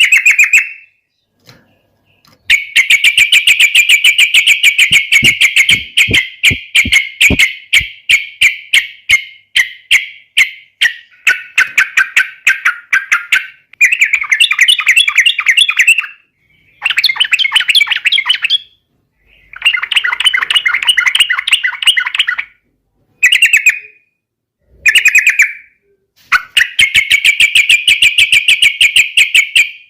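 Yellow-vented bulbul (trucukan) singing in loud runs of fast, chattering notes. One long run of about ten seconds is followed by shorter bursts of a second or a few seconds, with brief pauses between.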